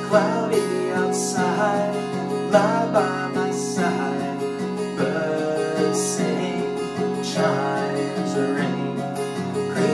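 Acoustic guitar strummed in steady chords while a man sings a slow folk song over it.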